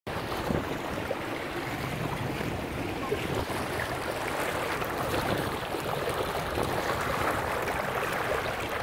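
Steady rush of wind and choppy water lapping around small sailing dinghies in a light, gusty breeze.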